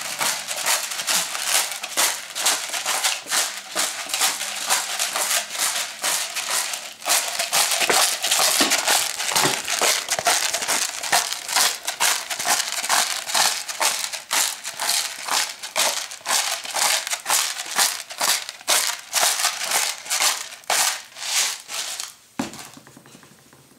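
Himalayan pink salt grinder being twisted by hand, crushing coarse salt crystals in a fast run of rattling, crackling clicks. It stops near the end.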